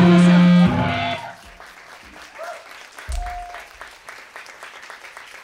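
Rock band's closing chord on guitars, bass and drums ringing out, cut off about half a second in, then audience applause and clapping, with one short shout about three seconds in.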